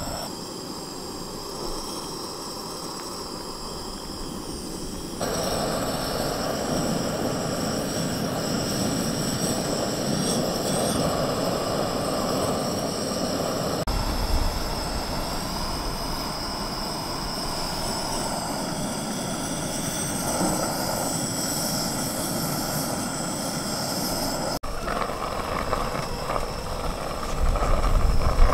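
Single-burner propane camp stove running steadily, a constant roar under a stainless steel kettle of heating water. The level steps up about five seconds in.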